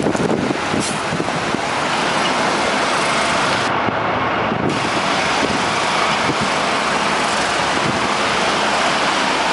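Wheel loader's diesel engine running as it works avalanche snow off the road, heard under a steady, loud rushing noise.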